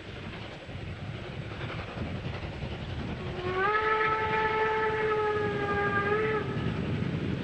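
Steam whistle of a DR class 86 steam locomotive, one steady blast about three seconds long starting a few seconds in, sliding up slightly as it opens and dropping as it closes. Under it, the locomotive's working noise grows louder as it approaches.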